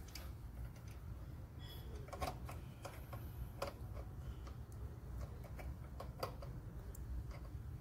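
Scattered light metallic clicks from tongue-and-groove pliers being handled and crimping the copper filter-drier inlet around a refrigerator capillary tube, over a low steady hum.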